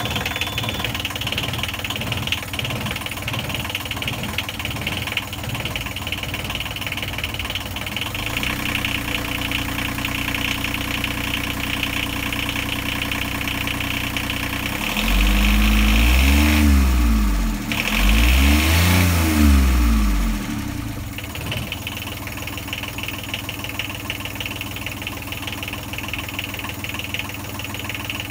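Small inboard marine diesel engine idling with a steady clatter. About halfway through it is revved up and back down twice, each rev lasting about two seconds, then it settles back to idle.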